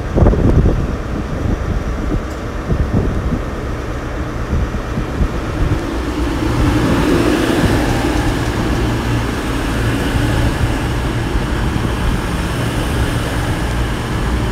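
CrossCountry Class 221 Super Voyager diesel multiple unit running in along the platform, its underfloor diesel engines and wheels on the rails growing louder from about six seconds in as it passes close by.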